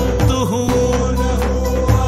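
An instrumental passage of a Hindi song, with no sung words: a steady held drone under sliding melodic lines and a bass line. A low drum stroke comes shortly in, and another near the end.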